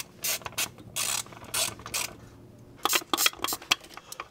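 Hand ratchet clicking in short bursts while tightening T40 Torx bolts, with a quicker run of clicks about three seconds in.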